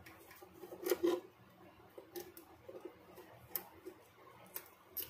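Screwdriver working a small screw that holds the heating element on a sealing machine's metal jaw: two sharp metallic clicks about a second in, then fainter ticks every second or so.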